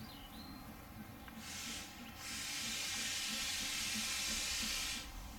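Narrow-gauge steam locomotive letting off steam: a short hiss about a second and a half in, then a longer, louder steady hiss for nearly three seconds that cuts off sharply near the end, as the engine moves off.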